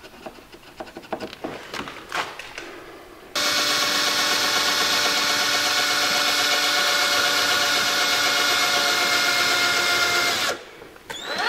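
Cordless drill starting about three seconds in and running at a steady speed for about seven seconds, boring a bolt hole through a car mud flap at the wheel arch, then stopping abruptly. Before it starts there are faint handling clicks and rustles.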